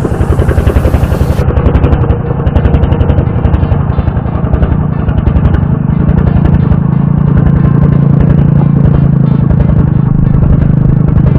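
A small engine running close by with a rapid, even pulsing beat, settling into a smoother, steadier hum about halfway through.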